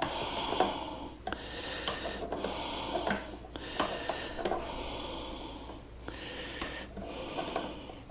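A man breathing hard and rhythmically while straining at a job, about one breath a second, with scattered light metallic clicks of a wrench working on a nut.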